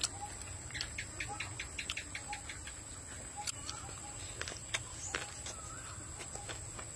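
Outdoor rural background: a steady high-pitched insect drone, a few short bird chirps, and a quick run of light clicks about a second in, with scattered single clicks after.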